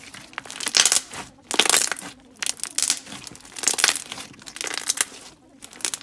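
Slime being squeezed and pressed between the hands, giving bursts of crackly air-bubble pops about once a second.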